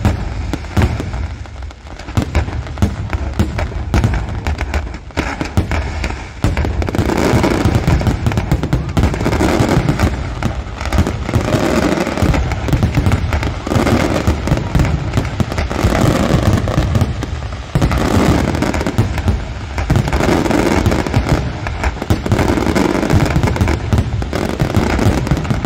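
Aerial firework shells bursting in a rapid barrage of bangs and crackles. The bangs thicken into an almost continuous roll about six seconds in.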